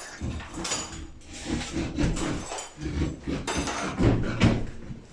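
Irregular knocks, thumps and clatter of hand work on a building site, as tools and materials are handled and struck.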